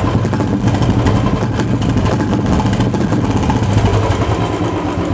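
Royal Enfield Bullet 350's single-cylinder engine idling steadily, heard close up at the outlet of a freshly fitted Indori short-bottle aftermarket silencer that replaces the stock one.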